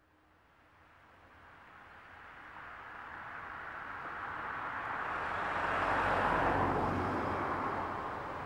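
A vehicle going by: a rushing noise that builds steadily for about six seconds, peaks, then begins to fade.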